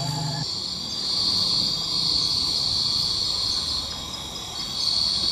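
Chorus of forest insects chirring: a steady high-pitched trill that grows louder about a second in, dips around four seconds, and rises again near the end.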